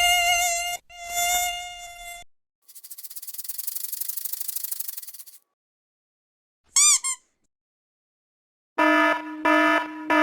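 A run of separate sound effects. First a held, wavering tone breaks off twice. Then comes about three seconds of fly-like insect buzzing, two quick chirps, and, near the end, a series of short air-horn blasts.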